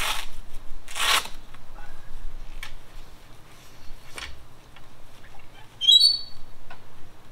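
Rustling and knocking as the awning's fabric canopy and metal support pole are handled, with two louder rustles in the first second or so and fainter clicks after. A short, high bird chirp comes about six seconds in.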